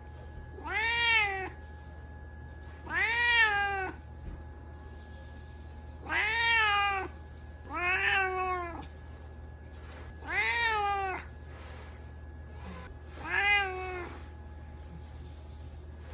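A cat meowing to demand a treat: six long meows of about a second each, every one rising and then falling in pitch, spaced a second or two apart.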